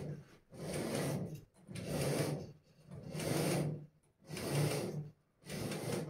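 A zebra roller blind being raised by hand, its pull chain and roller mechanism rasping in about six pulls, roughly one a second.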